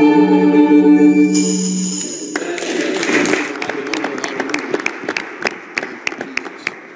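The held final chord of a worship song, sung with accompaniment, ends about two seconds in. A congregation then applauds, the clapping fading to scattered claps.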